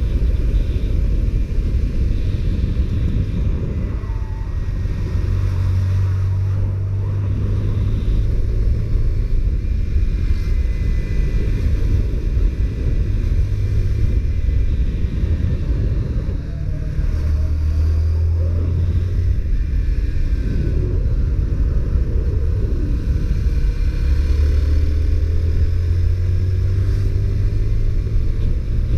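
Honda CBR125R's single-cylinder four-stroke engine running on the move, under heavy wind rumble on the microphone. The note gets louder in stretches, and rises in pitch near the end.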